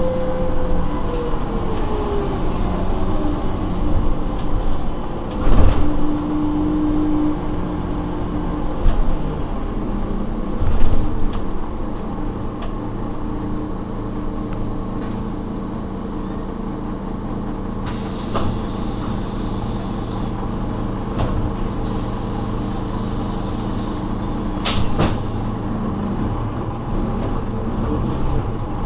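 Iveco Urbanway 12 city bus slowing down, its drivetrain whine falling in pitch, then running steadily at idle. There are loud sudden sounds a few seconds in and again about ten seconds in. A high beep repeats for a few seconds past the middle, and sharp clicks come near the end.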